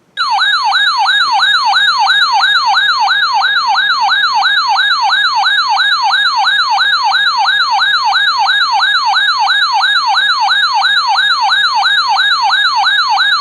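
Electronic siren-like alert tone from a weather radio, warbling with quick falling sweeps about three times a second. It is loud and steady, then cuts off abruptly near the end. It signals that an emergency alert, a severe thunderstorm warning, is coming in.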